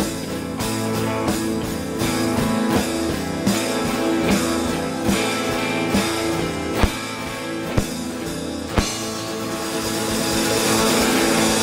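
Live band playing an instrumental passage: electric guitar over a drum kit's steady beat. Three sharp, louder drum hits come about seven, eight and nine seconds in, and a cymbal wash builds near the end.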